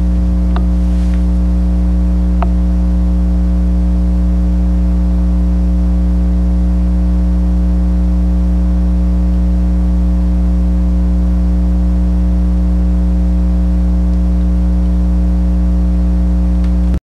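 Steady electrical mains hum, a low buzz with its overtones held constant throughout, with two faint clicks in the first few seconds.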